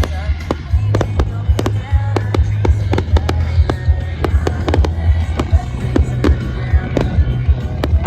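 Fireworks display: a rapid, irregular string of sharp bangs and crackles from exploding aerial fireworks, over loud music with a heavy bass.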